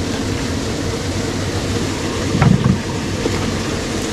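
A boat's motor running with a steady low drone, with a short, louder low thump about halfway through.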